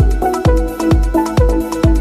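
Electronic dance music: a steady kick drum about twice a second under sustained synth notes.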